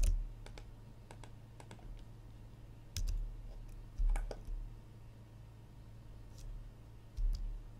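Irregular clicks and taps of a computer keyboard and mouse during 3D-modelling work, a few of them heavier with a dull thud, about three seconds, four seconds and seven seconds in, over a steady low hum.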